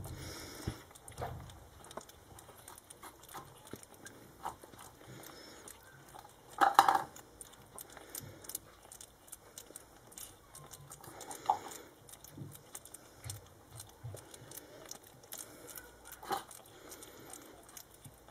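Three-and-a-half-week-old Shih Tzu puppies licking and grooming each other: soft, quick licking and smacking clicks, with a few brief louder sounds, the loudest about seven seconds in.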